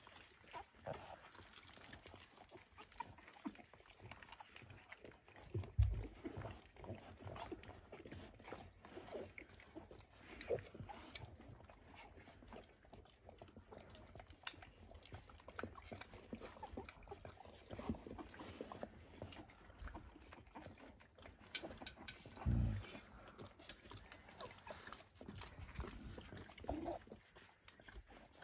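Faint grunts and squeaks from eleven-day-old Dalmatian puppies shuffling about together, with two soft thumps.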